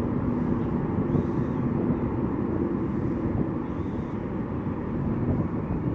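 Airbus A350 jet engines (Rolls-Royce Trent XWB turbofans) heard from a distance during the takeoff roll: a steady low rumble with a faint held hum.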